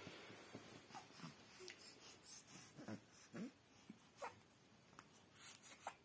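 Near silence, broken by faint, scattered snuffles and small short grunts from a sleeping newborn baby.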